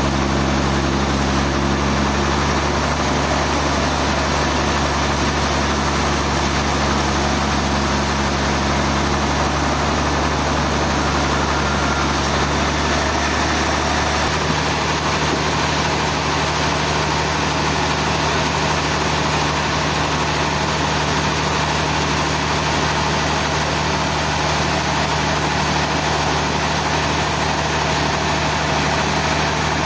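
A large engine running steadily, as if idling, with a steady low hum. A little before halfway through, its pitch shifts slightly and the deepest part of the hum drops away.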